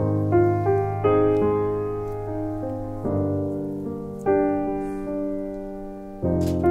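Background piano music: chords and single notes struck every second or so, each ringing and fading away.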